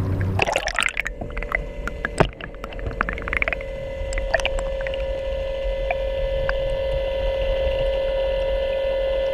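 Bixby electric kayak motor running under power with a steady whine, water splashing and scattered clicks over the first few seconds.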